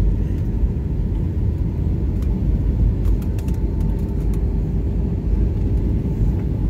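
Steady low roar of a jet airliner's cabin noise during descent, heard from a window seat, with a faint steady hum above it.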